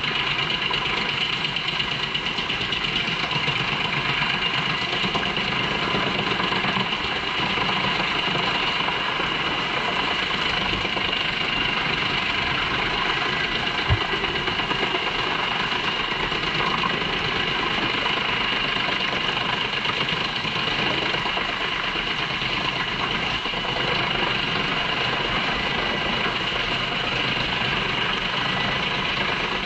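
JENZ HEM 593-R truck-mounted drum chipper running under load, chipping poplar trunks and blowing the chips out of its discharge spout: a steady engine drone with a steady high whine. One sharp knock about halfway through.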